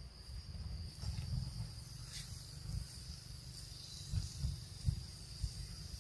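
A steady, high-pitched drone of insects in the forest, with irregular low rumbling on the microphone underneath and a brief crackle about two seconds in.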